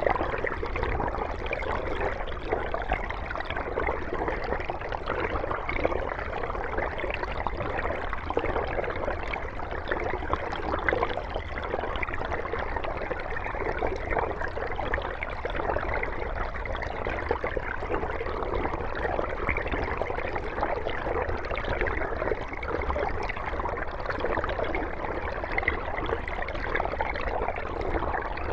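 Mountain stream running over rocks: a steady rush of flowing water with a bubbling, gurgling texture.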